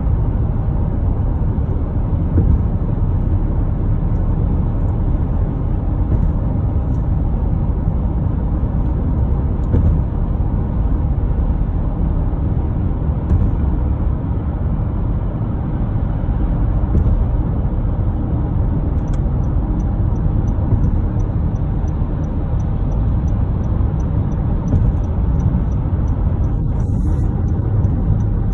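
Steady low rumble of a car driving on a highway bridge: tyre and engine noise heard from inside the cabin.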